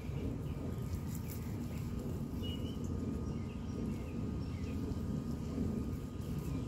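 Steady low outdoor background rumble with a faint constant hum. A few faint high chirps come about two to three seconds in and again later.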